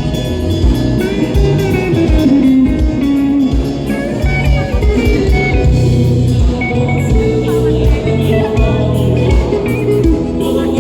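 Music: a band playing, with a guitar melody over a bass line and a steady drum beat.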